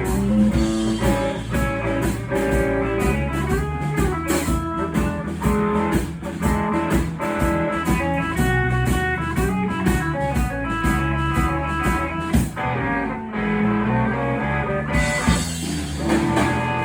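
Live blues band playing an instrumental, with electric guitar over bass and drums keeping a steady cymbal beat. About thirteen seconds in, the cymbals drop out for about two seconds, then the band comes back in.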